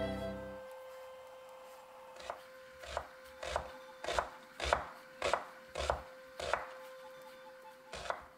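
A kitchen knife chopping on a wooden cutting board: about nine evenly spaced, sharp chops, roughly one every 0.6 s, over a faint steady tone. At the start, the end of a violin-and-piano chord fades away.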